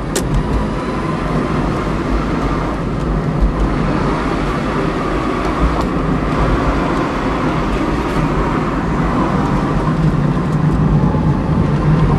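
Smart electric car driving uphill under power, heard from inside the cabin: steady road and tyre rumble with a faint steady whine.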